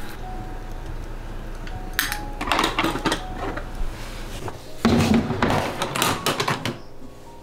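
Large aluminium rice steamer being lifted off the wok and set down: metal knocks, scrapes and cloth rustling in two bouts, the loudest about five seconds in.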